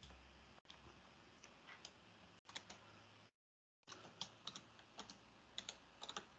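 Faint typing on a computer keyboard: scattered key clicks, more frequent in the second half, broken by two short dropouts to dead silence.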